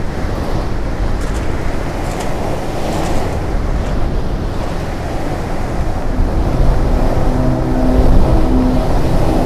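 Wind buffeting the camera microphone, a loud low rumble. About two-thirds of the way in, sustained music notes come in over it.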